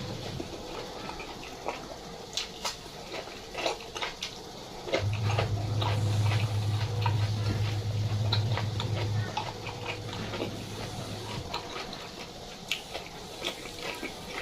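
Close-up eating sounds: irregular crunching, chewing and wet mouth clicks. A steady low hum comes in about five seconds in and fades out a few seconds later.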